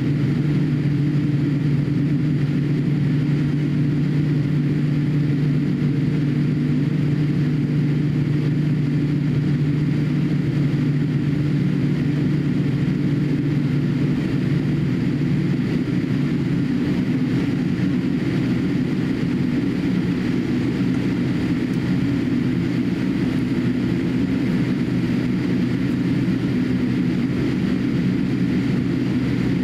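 Cabin noise inside a Boeing 787-8 jetliner taxiing: a steady low drone from the engines at taxi power. The lower of two steady hums in it fades away about halfway through.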